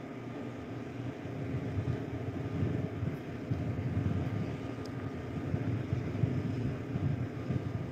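Wind buffeting a phone's microphone outdoors: a low, uneven rumble that rises and falls.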